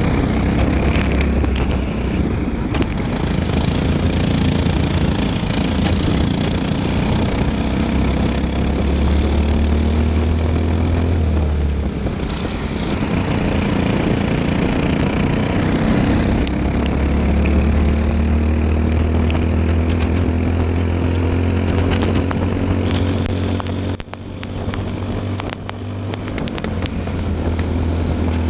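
Onboard sound of a Briggs & Stratton LO206 single-cylinder four-stroke kart engine at racing speed, its pitch climbing on the straights and dropping as the throttle is lifted for corners, about halfway through and more sharply near the end. A steady hiss of wind and wet-tyre spray runs underneath.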